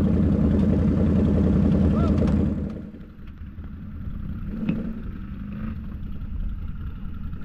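ATV engine running steadily under load, then about two and a half seconds in the sound drops sharply to a quieter, muffled low rumble.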